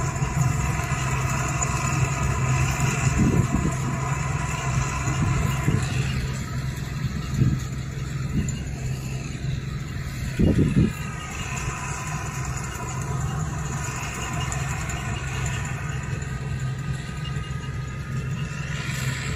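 Combine harvester running steadily while harvesting sunflowers: a constant low engine drone overlaid with the steady whine of its threshing machinery. A few brief low bumps stand out, the strongest about ten seconds in.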